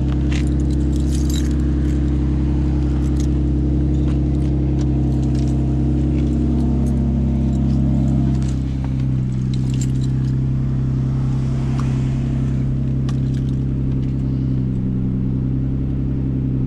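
Seventh-generation Nissan Maxima's 3.5-litre V6 idling steadily on a cold start, with light key jangles and clicks over it. The engine note shifts slightly about halfway through.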